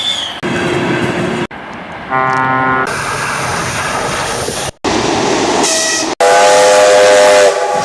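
A quick succession of short train clips with abrupt cuts: rumbling train running noise and two train horn blasts, a short one about two seconds in and a longer, louder one about six seconds in.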